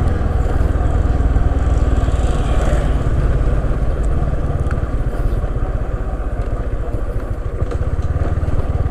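Motorcycle riding along at steady speed, its engine rumble mixed with wind rushing over the GoPro's external microphone.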